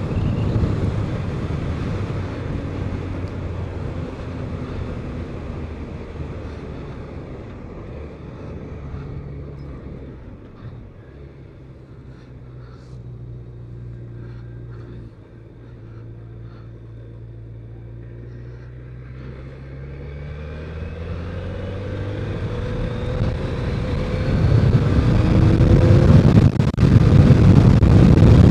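BMW K1200RS inline-four engine under way, with wind noise. It eases off to a quieter, steady low-speed run through the middle, then accelerates from about two-thirds of the way in: engine pitch rising and wind noise building loud near the end.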